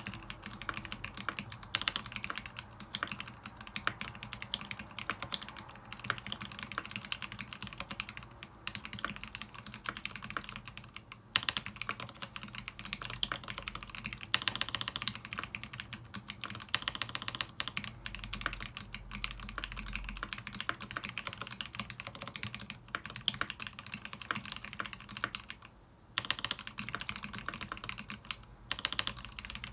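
Continuous fast typing on a mechanical keyboard with lubed Gateron Zealios V2 tactile switches mounted on a brass plate: a dense stream of irregular key clacks, with brief pauses about 11 and 26 seconds in.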